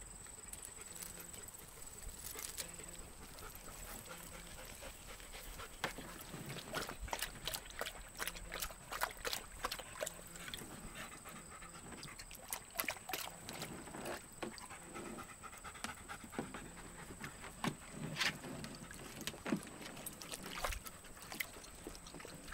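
Dogs panting, with irregular sharp clicks and taps from about six seconds in.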